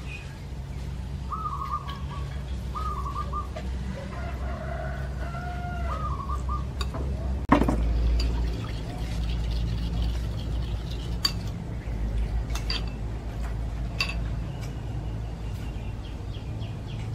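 Birds calling in short repeated notes over a steady low hum for the first six seconds or so. Then a sharp clink about seven and a half seconds in, followed by scattered light clicks of a metal spoon against a ceramic bowl.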